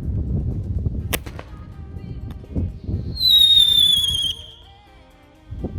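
Paratrooper firework: a single sharp crack about a second in, then a high whistle that falls slightly in pitch, lasts about a second and cuts off suddenly.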